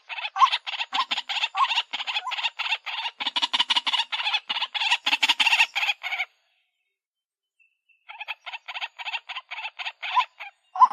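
White-breasted waterhen calling, played as a lure recording: a fast run of harsh repeated notes with a clearer note recurring about every half second. The calling stops about six seconds in, then starts again two seconds later.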